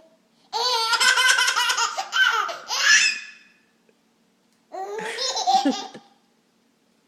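Baby laughing in two bouts: a long run of high-pitched laughter lasting nearly three seconds, then a shorter one about five seconds in.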